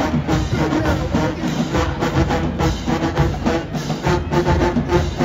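HBCU show-style marching band playing: brass and sousaphones over a steady drumline beat.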